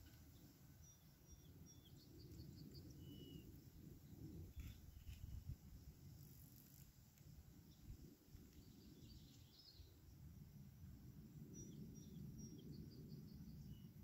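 Faint wind rumbling in gusts that swell and fade. Distant birds call over it with short, high chirps and quick runs of repeated notes, most noticeably near the start and again past the middle.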